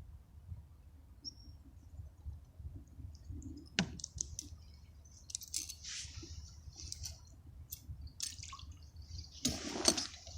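Water splashing and dripping in short bursts, with a single sharp click about four seconds in; the loudest splash comes near the end.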